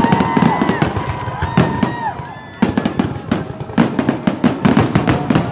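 Fireworks finale: rapid, overlapping bangs and crackle of aerial shells bursting, easing briefly about two and a half seconds in before a loud burst. Held whistling tones sound over the bangs in the first half.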